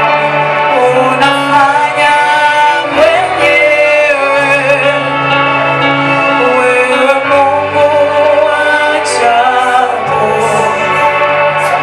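Gospel worship song: voices singing sustained, gliding melody lines over a steady instrumental accompaniment.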